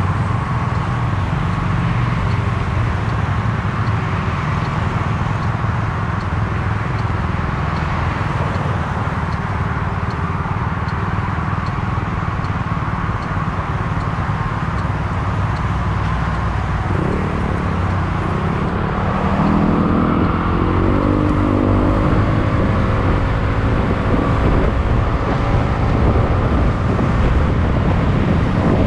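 Small motorbike engine running steadily at low revs, then pulling away a little over halfway through, its note rising in several steps and growing a little louder.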